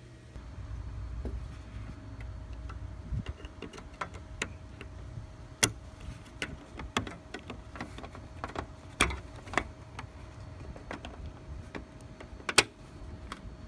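Sharp plastic clicks and knocks as a Honda Civic license plate light housing is handled and pressed into its opening, the loudest snaps about six, nine and twelve and a half seconds in, over a steady low rumble.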